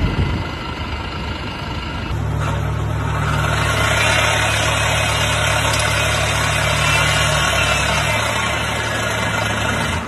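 A BMW i8's air-conditioning compressor under the front bonnet runs noisily. A steady low hum with a rough, gritty layer above it sets in about two seconds in. This is the abnormal compressor noise that marks early internal failure of the unit.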